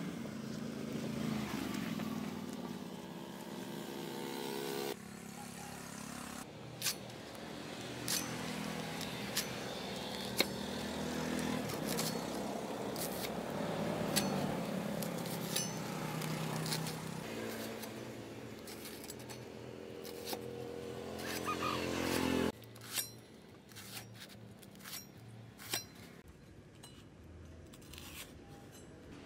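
A motor runs steadily, its pitch shifting a couple of times, with scattered sharp taps. The motor cuts off about twenty-two seconds in, and the occasional taps go on.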